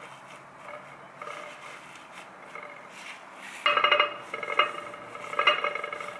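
Paper towel rustling softly as it is pressed over strawberries on a white ceramic serving tray. About three and a half seconds in, the ceramic tray clatters and rings in a few bursts as the towel is lifted off.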